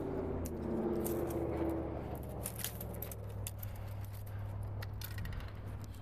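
A motor running with a steady low hum. A higher whine fades out about two seconds in, under a scatter of sharp crackles and snaps from tree branches and leaves being handled.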